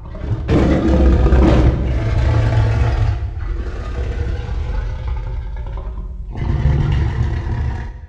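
Godzilla roar sound effect over a deep rumble. It comes in two pushes: a long one from about half a second in to about six seconds, loudest in its first second, then a second, shorter one near the end.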